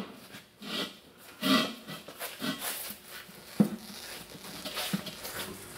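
A tire being worked onto a steel wheel by hand, with irregular rubbing and scuffing of rubber against the rim and one sharp knock about three and a half seconds in.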